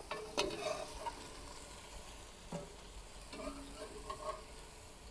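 Pork cubes sizzling faintly in a hot cast-iron Dutch oven while a metal skimmer scoops them out, with a few short metallic clicks and scrapes as it knocks against the pot and the steel tray.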